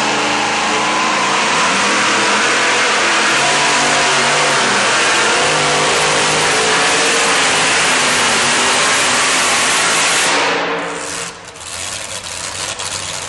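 Two-wheel-drive pulling truck's engine running flat out under load as it drags the sled down the track, then dropping away sharply about ten and a half seconds in as the throttle comes off at the end of the pull.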